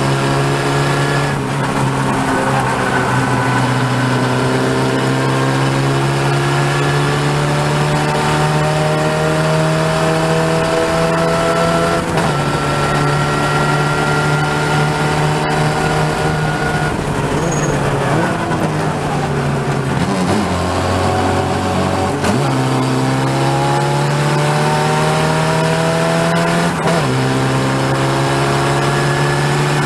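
Open-wheel single-seat race car's engine heard onboard at racing speed, its note climbing steadily in each gear and dropping at upshifts about a second in, around twelve seconds in and near the end. Midway the note falls away as the car slows for a corner, then climbs again as it accelerates out.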